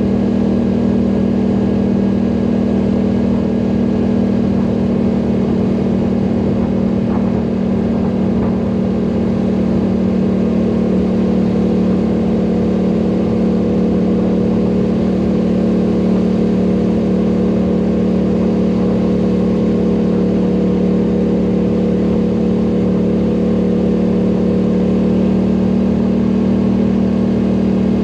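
ATV engine running steadily under way, its pitch holding almost constant.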